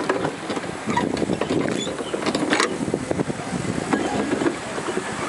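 A rowboat being rowed: a steady rumbling noise, with scattered light knocks and splashes from the wooden oars working in their oarlocks and dipping into the water.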